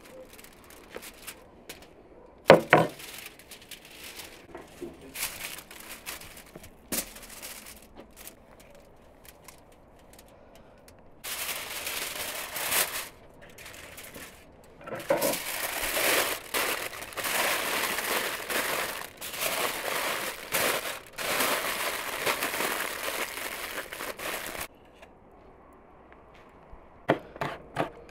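Aluminium foil crinkling and rustling loudly as a foil parcel is opened and pulled back, after a stretch of scattered clicks and one sharp knock. Near the end a knife starts chopping in quick regular strokes on a wooden board.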